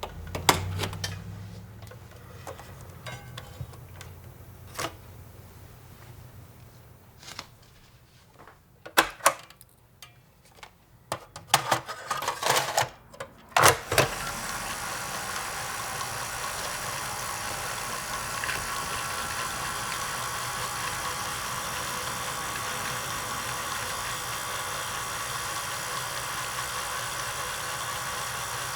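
Solidex Model 829 Beta tape rewinder: a few plastic clicks as its power cord is plugged in, then a quick run of clacks as a Beta tape is pushed in and the lid shut. About halfway through, the rewinding motor starts and runs in an even, steady whir.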